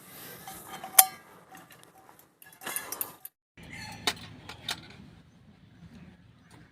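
Sharp clinks and clatter of small hard objects being handled, with the loudest clink about a second in and a few more further on.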